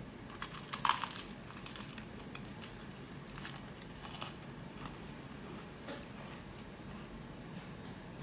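Crisp crackling and crinkling of flaky laminated pastry being handled and torn, in short scattered bursts; the loudest comes about a second in.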